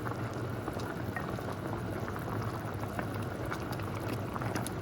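Soy-sauce braising liquid bubbling at a rolling boil around chicken pieces in an open pot, a steady sizzling bubble with many small pops, over a steady low hum.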